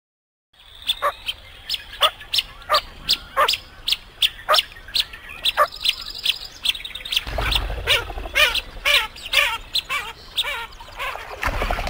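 Blue-winged teal calling: a quick run of short, high chirps, two or three a second, starting about half a second in. A low rumble comes in around seven seconds in and again near the end.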